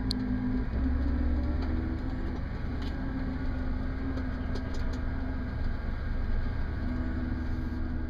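Case IH 7120 combine running while harvesting corn, heard from inside the cab: a steady low drone of engine and machinery with a steady hum above it, getting a little deeper and stronger about a second in.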